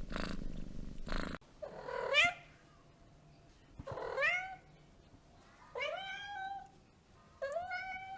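A cat purring, then a cat meowing four times, about two seconds apart, each meow rising and then falling in pitch.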